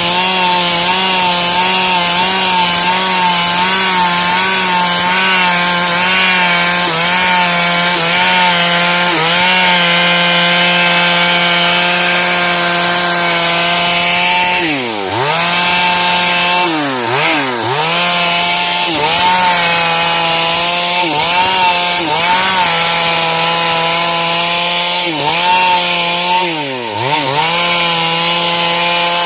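Stihl MS 382 two-stroke chainsaw at full throttle, ripping lengthwise through dry wood. From about halfway the engine revs drop sharply and climb back several times, and near the end they fall away.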